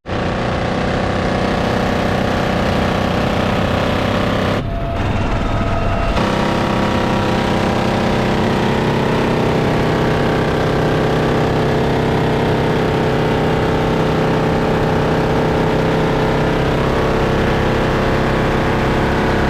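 A steady, loud engine drone with several held tones, which changes in texture briefly about five seconds in.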